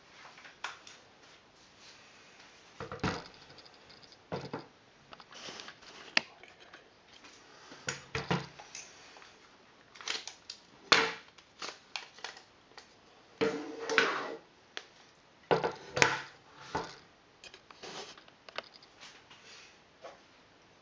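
Irregular clicks, knocks and rattles of a Viper Tech gas-blowback airsoft rifle being taken apart by hand, as its plastic handguard is worked off the barrel and gas tube. A few louder knocks stand out, the loudest about eleven and sixteen seconds in.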